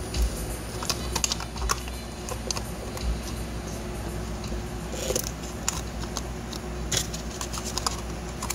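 Hands working a paper or tape strip around a tin voice-coil former held in a drill chuck: scattered light clicks and taps, irregular, with a couple of louder ones about five and seven seconds in, over a faint low hum.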